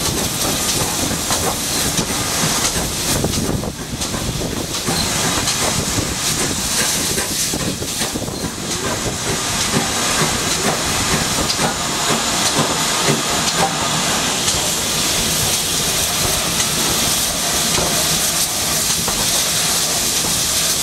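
GWR Modified Hall 4-6-0 steam locomotive hissing steam steadily as it runs slowly into a station, over the rumble of the train on the rails. The hiss grows stronger about a third of the way in.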